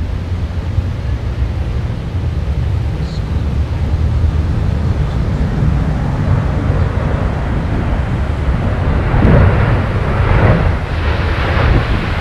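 Wind buffeting the microphone as a steady low rumble, with a broader roar building from about six seconds in and loudest around ten seconds.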